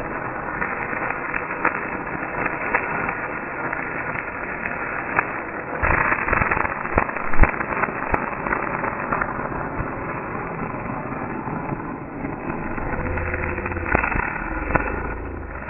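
Stick-welding arc from an E6013 rod crackling and sputtering steadily, with many sharp pops, louder for a stretch about six seconds in and again near the end.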